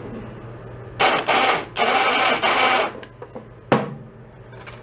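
Small electric ATV winch powered straight from a jumper pack, its motor and gears running in two loud bursts about a second in, then a sharp click near the end. It still works after sitting unused for a long time.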